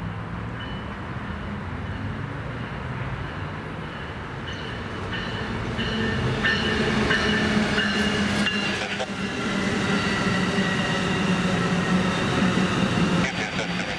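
A train running past, its low rumble growing louder about six seconds in, with thin high-pitched squealing over it.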